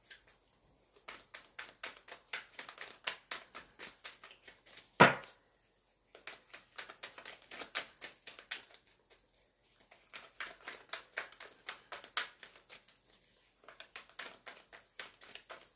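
A deck of tarot cards being shuffled by hand: runs of rapid card clicks broken by short pauses, with one sharp knock about five seconds in.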